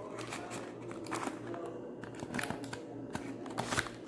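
Light clicks, taps and rustles from hands handling a phone's box and packaging.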